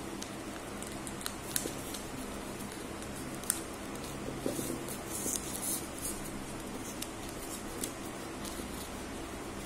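A sheet of ruled paper being folded and creased by hand: scattered soft rustles and short crisp clicks, busiest around the middle, over a steady low hum.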